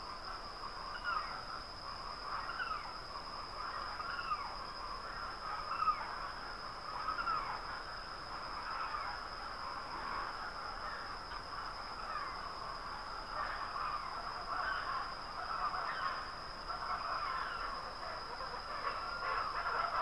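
Early-morning rural ambience: birds calling over and over in short curved calls, over a steady high-pitched drone.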